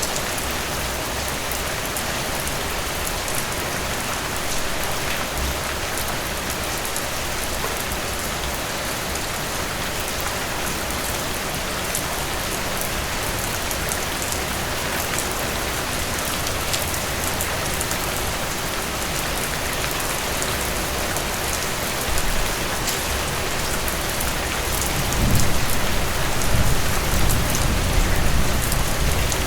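Steady rain falling on a surface, an even hiss with many fine drop taps. A low rumble swells in under it in the last few seconds.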